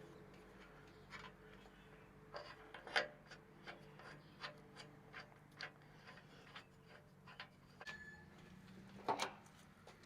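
Irregular light clicks and knocks of exhaust bracket hardware being handled and shifted into a higher position, with a sharper knock about three seconds in and two close together near the end, over a low steady hum.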